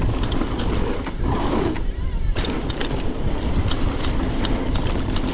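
Mountain bike on a dirt trail: steady low rumble on the microphone with scattered sharp clicks and rattles from the bike.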